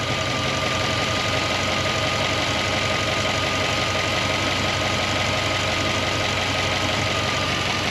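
Freshly rebuilt GM Gen IV 5.3 L Vortec V8 idling steadily while warming up after its first start, with a thin steady whine over it. The owner hears no serious knocking but maybe a little bit of a miss.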